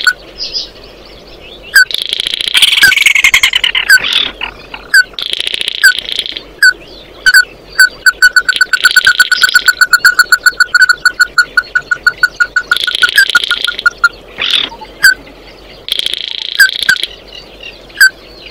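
Red-legged crake calling: a fast series of short, sharp notes, several a second, broken every few seconds by about a second of harsher, noisier chatter.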